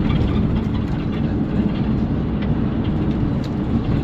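Steady road and engine rumble inside a moving car, with a few faint ticks. It cuts off suddenly at the end.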